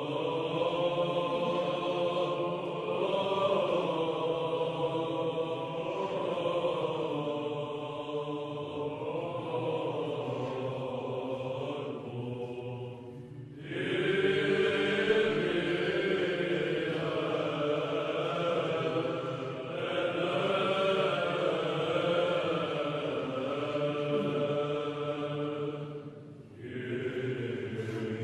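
Slow Byzantine-style church chant: long, sustained sung lines over a steady low drone, pausing briefly about 13 seconds in and again about 26 seconds in.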